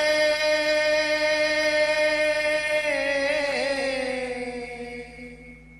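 A man singing a devotional bhajan, holding one long note. The note is steady for about three seconds, then wavers in a vocal ornament and slides down as it fades out near the end.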